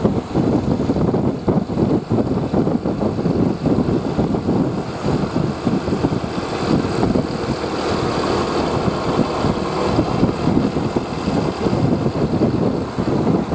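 Bus engine running steadily, a dense rumble with no horn sounding. A hiss swells in the middle.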